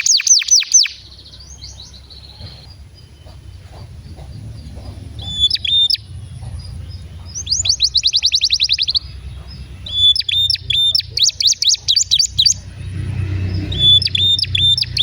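Domestic canary singing in phrases of fast rolling trills, strings of rapid repeated sweeping notes, with a pause of a few seconds after the first trill before the song resumes. A steady low hum runs underneath.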